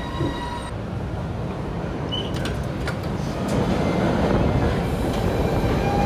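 MBTA Red Line subway train running in an underground station, a steady low rumble that grows louder about three and a half seconds in as the train moves along the platform. A steady tone comes in near the end.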